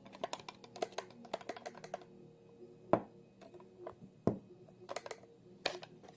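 Rapid light clicks and taps, with three sharper knocks spread through, as a fixed-blade karambit knife and its hard K sheath are handled.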